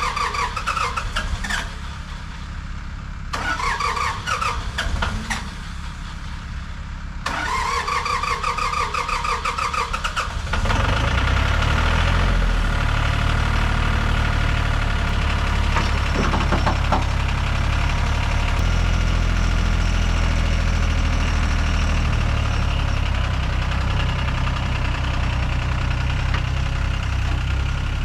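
Skid steer engine being cranked by its starter, with two brief breaks, then catching about ten seconds in and settling into a steady, louder run.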